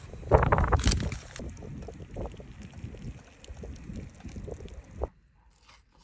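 Wind buffeting the microphone while tea is poured from a pot into an aluminium mess tin of rice, the buffeting loudest in the first second. The sound cuts off abruptly about five seconds in.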